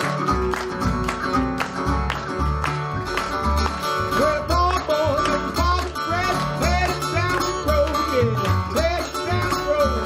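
Johnson resonator guitar fingerpicked in open D tuning, a country blues with a steady, pulsing thumb-picked bass. From about four seconds in, a higher line of bent, gliding notes joins it.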